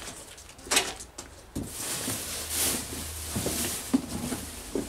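Hands rummaging inside a cardboard box, rustling and scraping the packaging, with a few light knocks.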